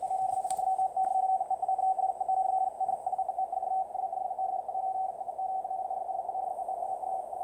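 Extremely fast, computer-sent Morse code received on a shortwave radio: a single steady tone keyed on and off in a rapid, unbroken stream over faint background hiss.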